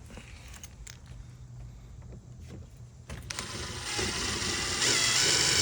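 DeWalt DCF801 12V cordless impact driver driving a screw into a wooden post: after a few faint handling clicks it starts about three seconds in, builds up and runs on with a steady high whine.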